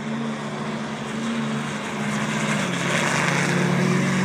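Two heavy-duty pickup trucks, a Ford Super Duty and a Ram, accelerating hard side by side down a drag strip, their engines growing louder as they come past. The engine note steps down in pitch about two and a half seconds in as a gear changes.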